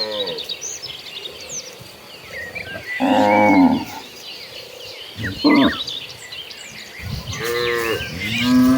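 Cattle mooing: several moos from the herd, one about three seconds in, a short one a little later, and long drawn-out calls near the end. Small birds chirp throughout.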